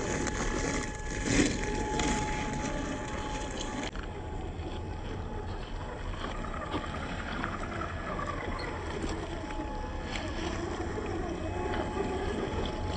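Electric RC scale truck driving over rough ground: its brushed 550 motor and gearbox whine under a steady running noise, with a few sharp knocks, the loudest about a second and a half in.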